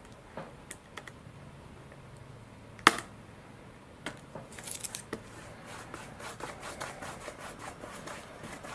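Fingertips pressing and rubbing pinstripe tape down around a clear plastic servo cover on the wing: a few light clicks, one sharp click about three seconds in, then a run of quick rubbing strokes as the tape is smoothed.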